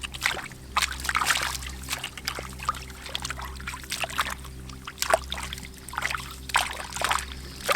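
Shallow water splashing and trickling in irregular bursts as fish are caught by hand, over a steady low hum.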